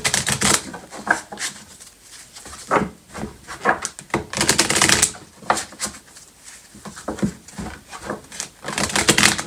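A deck of cards being shuffled by hand: irregular bursts of papery shuffling and slapping, the biggest at the start, about halfway through and near the end.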